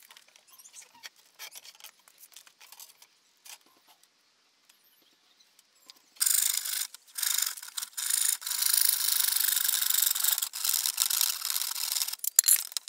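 Handsaw cutting through a laminate flooring board: a fast run of rasping strokes starts about six seconds in and stops about a second before the end. Before it there are only a few faint clicks and taps.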